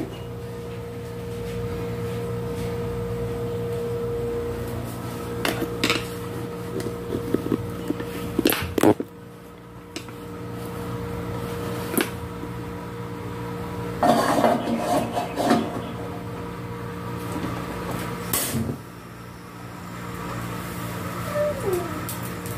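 Cookware handling on a gas stove: scattered sharp knocks and clicks of metal pots, with a short run of clatter a little past the middle, over a steady hum.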